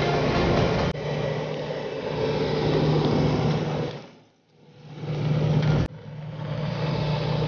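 Harvest machinery engine running steadily with a low hum, cut abruptly about a second in and again near six seconds, and fading almost to silence for a moment around the middle before coming back.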